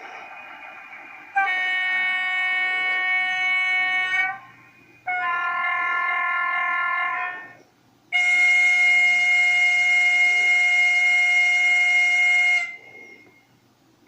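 Sound decoder of a model M62 diesel locomotive sounding its horn: three steady blasts, the last one the longest and loudest.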